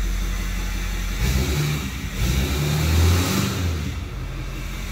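2015 Ford F-250's 6.7 Power Stroke V8 turbo-diesel running with its diesel particulate filter and catalytic converter removed, in reduced-power limp mode. The engine sound grows louder and more uneven from about a second in until near the end.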